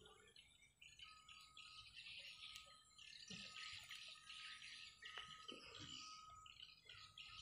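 Faint chirping and twittering of small birds, with a thin steady high tone coming and going and one brief click about five seconds in.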